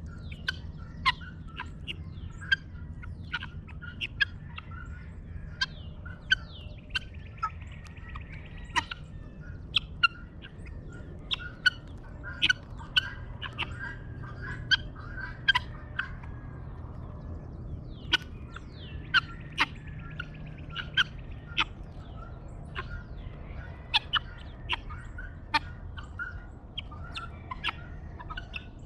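Dawn bird chorus: several birds calling at once, with many sharp chirps, one or two a second, over a chatter of other calls and a low steady hum.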